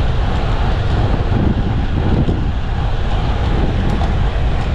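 Steady rush of wind and road noise from a car moving at about 55 km/h.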